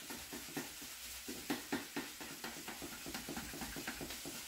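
Spatula scraping and chopping through raw ground beef in a frying pan, short strokes two or three times a second over a faint sizzle, breaking the meat into small pieces.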